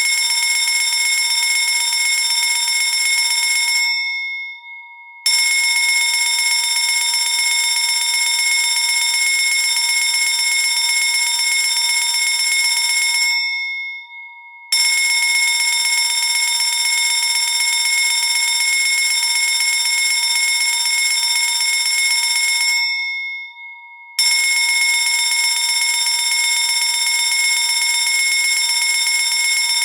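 Electric fire alarm bell ringing loudly in stretches of about nine seconds. Three times it breaks off for about a second, and in each pause the gong's tone hangs on and fades before the striking starts again.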